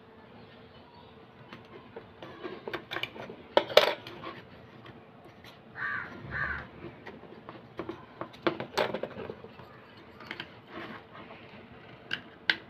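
Small metal and plastic parts of an LED lamp being handled and pressed together on a work surface: irregular clicks and taps, the sharpest about four seconds in and again around nine seconds.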